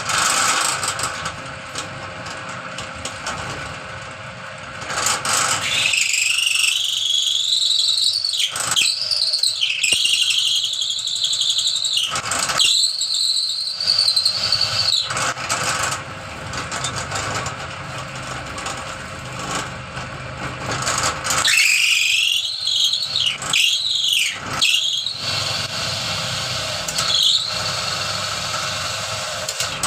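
Dowel-tapering machine running while its cutter shapes the end of a 30 mm wooden dowel into a point, giving a high squealing whine that bends up and down in pitch. The squeal comes twice, a long stretch about six seconds in and a shorter one past the twenty-second mark, with the machine's steady running between.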